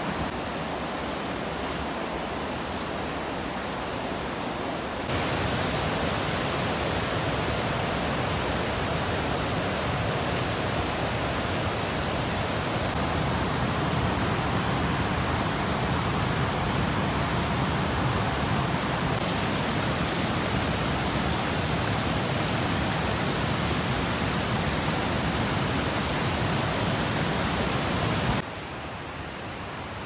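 Rainforest ambience: a steady rushing noise that gets louder at a cut about five seconds in and drops near the end, with a few short high chirps in the first few seconds and faint high trills now and then.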